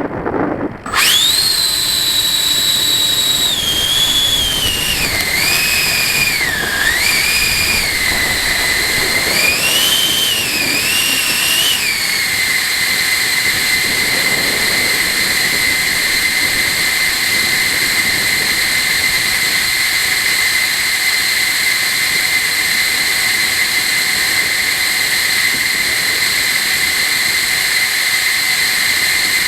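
A 90 mm electric ducted fan on a model jet, whining as it spools up about a second in. Its pitch falls and rises several times with throttle changes, then settles into a steady, lower whine from about twelve seconds on.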